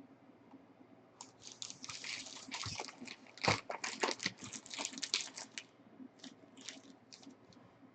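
Plastic packaging crinkling and tearing as sports trading cards are unwrapped and handled, in an irregular run of crackles that thins to a few scattered clicks near the end.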